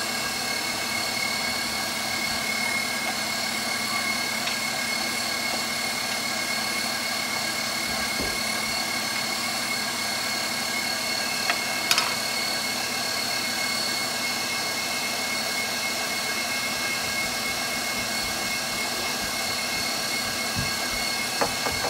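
KitchenAid Professional HD stand mixer running steadily with the pasta press attachment, its auger forcing dough out through the die: an even motor hum with a steady high whine. A single brief knock about twelve seconds in.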